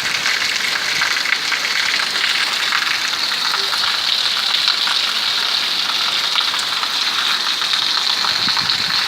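Heavy rain falling steadily, a dense even hiss of drops with water pouring from a roof spout.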